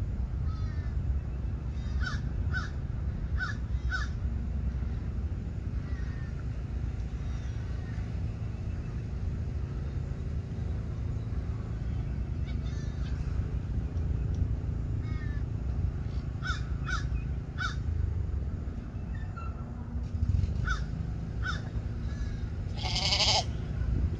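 Wind buffeting the microphone with a steady low rumble, while birds call in quick runs of three or four short notes. One louder, longer call comes near the end.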